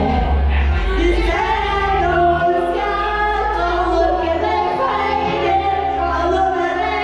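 Karaoke: voices singing into handheld microphones over a backing track with held bass notes.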